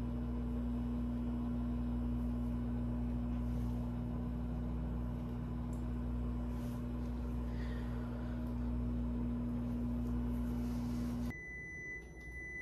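Microwave oven running with a steady hum while heating a bowl of oatmeal, then shutting off abruptly about eleven seconds in and beeping to signal that it has finished.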